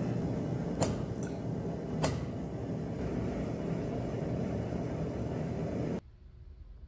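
Two sharp metal-on-metal hammer blows on a steel touchmark punch, driving the mark into a red-hot bar on the anvil, the first just under a second in and the second about a second later. A steady low rushing noise runs underneath and cuts off suddenly near the end.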